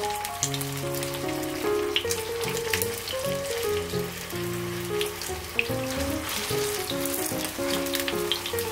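Shrimp toast shallow-frying in oil in a frying pan: a steady sizzle with scattered sharp crackles and pops. A melodic music track plays over it.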